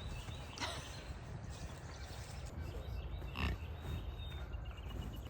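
Bison grunting at the feed fence: two short, rough grunts, one about half a second in and another a little past three seconds, over a steady low rumble.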